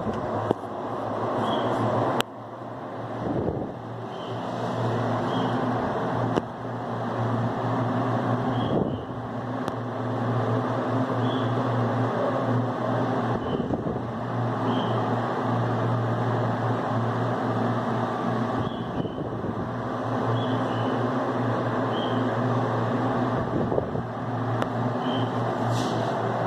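Arno Turbo Silêncio Maxx six-blade table fan running: a steady rush of air over a low motor hum. A few clicks come with dips and rises in its level.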